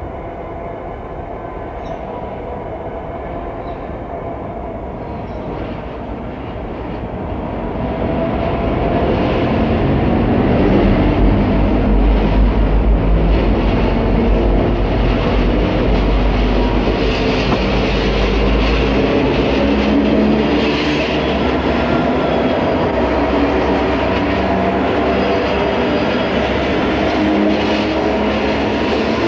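Diesel locomotives of a freight train pulling forward and passing close by, their engines running. The sound grows louder about eight seconds in as the lead units draw near, with a heavy low rumble while they pass.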